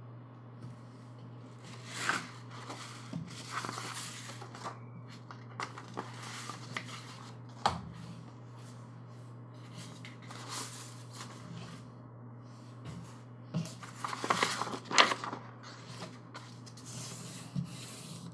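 Large paper poster sheets being handled and turned over: rustling and sliding in scattered bursts with a few sharp taps, the busiest stretch about two thirds of the way in. A steady low hum runs underneath.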